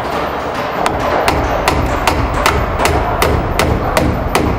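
Hammer driving a 2-inch nail through a wooden door jamb into the wood shims behind it: a run of about ten evenly spaced strikes, about two and a half a second, starting about a second in.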